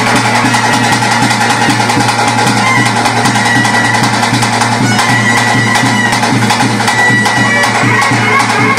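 Traditional music: a reed wind instrument plays a melody with long held high notes over fast, steady drumming.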